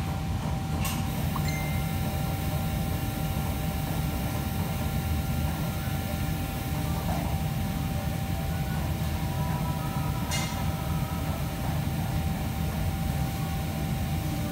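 Commercial kitchen background noise: a steady low machine rumble with a thin steady whine over it, and a sharp clink about a second in and again about ten seconds in.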